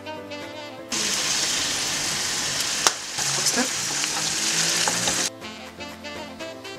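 Sliced mushrooms sizzling in a frying pan as they are stirred with a wooden spatula, with one sharp knock in the middle. The sizzling starts about a second in and cuts off suddenly a little past five seconds, with music before and after it.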